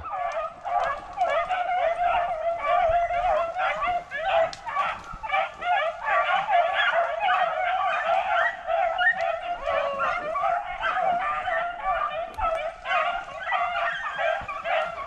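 A pack of beagles baying nonstop, many voices overlapping: hounds running a rabbit on its scent.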